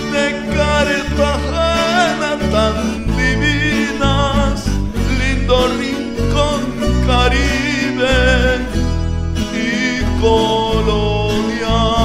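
Latin song playing as background music, an instrumental passage with plucked guitar, a pulsing bass and a wavering melody line.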